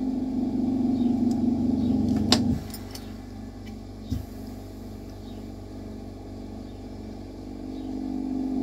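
A steady low mechanical hum that drops sharply in level about two and a half seconds in and builds again near the end. A sharp click comes just before the drop, and a short low thud about four seconds in.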